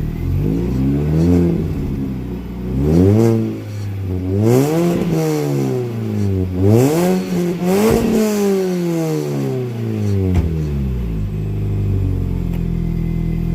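BMW Mini (R53) engine idling, then blipped through several quick revs through an exhaust with its tailpipe tips ground off, before settling back to idle.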